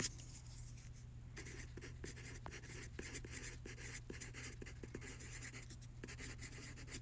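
Red colored pencil scratching on a paper worksheet in a run of quick, short strokes, starting about a second in and stopping shortly before the end. Faint, over a steady low hum.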